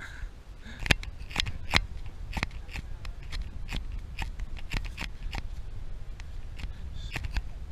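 Hikers' footsteps and the tips of trekking poles striking a dry dirt-and-stone trail, heard as an irregular run of sharp clicks and crunches, a few every second.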